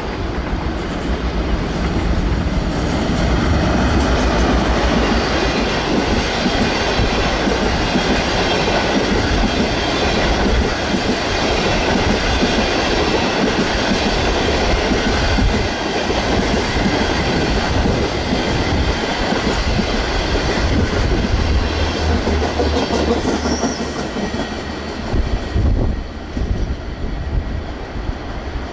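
Diesel-hauled long-distance passenger train running through at speed: the locomotive comes up, then the long string of coaches rushes past with the steady noise of wheels on rail, easing near the end as the train moves away.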